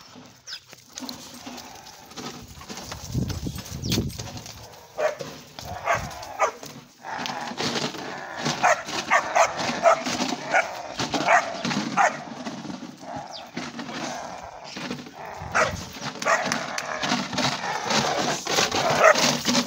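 Young dogs barking in short, sharp barks that come in quick runs, mostly in the second half, over a steady background noise.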